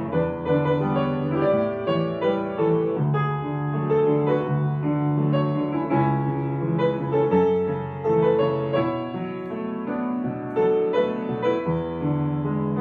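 Soft, slow piano music, single held notes and chords changing every second or so.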